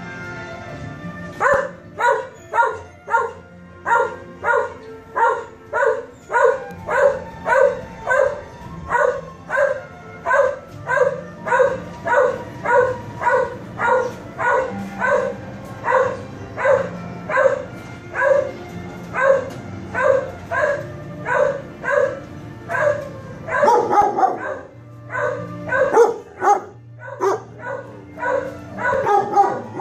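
Shelter dogs in kennel runs barking: one dog barks steadily and rhythmically, about two barks a second. Near the end, a burst of more irregular barking from several dogs breaks in.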